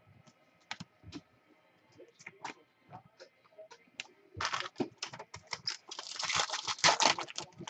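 Light clicks and taps of cards and packs being handled, then from about halfway a Bowman Chrome foil pack wrapper crinkling and tearing as it is opened, loudest near the end.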